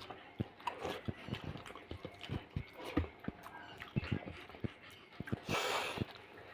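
Close-miked wet chewing and lip-smacking of someone eating fish curry and rice: a quick run of sharp smacks and clicks, with a short breathy rush near the end.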